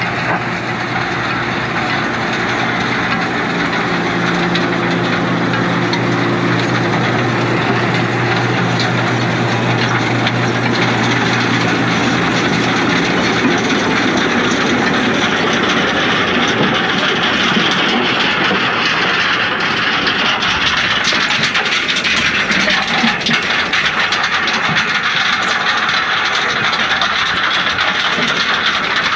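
Usarya stone picker working behind a Valtra tractor. For the first dozen seconds the tractor's engine drones steadily under the machinery noise. After that a dense, continuous rattle and clatter of stones and soil tumbling through the picker's rotating drum takes over.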